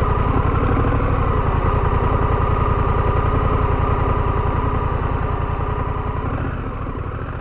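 Honda Rebel 1100's parallel-twin engine idling with a rapid, even pulse, fading away over the last couple of seconds.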